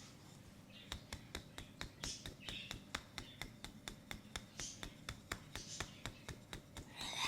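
Hands slapping rhythmically on an oiled leg during a massage: quick, even slaps at about five a second. Short high chirps sound in the background, with a louder one near the end.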